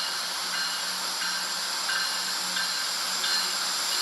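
CN freight train rolling past a grade crossing: a steady rushing, hissing noise from the passing train, with a faint grade-crossing bell ringing in an even rhythm of about one stroke every 0.7 seconds.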